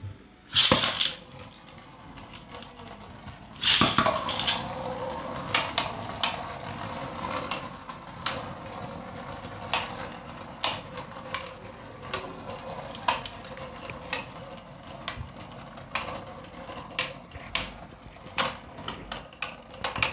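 Two Beyblade Burst spinning tops, one of them Spriggan Requiem, launched into a stadium one after the other, about a second in and again near four seconds in. They then spin with a steady whirr and clash again and again with sharp clicks.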